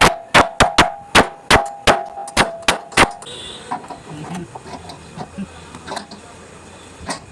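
Hammer blows on a wooden door joint, driving it together: about ten quick, sharp strikes with a short metallic ring in the first three seconds, then a few lighter knocks and one more blow near the end.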